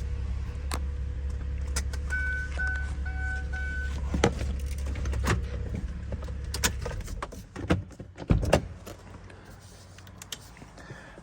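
A 2009 Saturn Vue's engine running with a steady low hum, then switched off about seven seconds in. A dashboard chime beeps four times about two seconds in. After the engine stops there are several clicks and knocks, with keys jangling.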